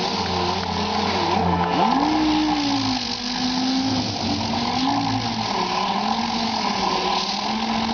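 Astro air-powered mud hog orbital sander running on body filler: a motor whine that sags and recovers in pitch as it is pressed into the work, over the steady hiss of the abrasive disc.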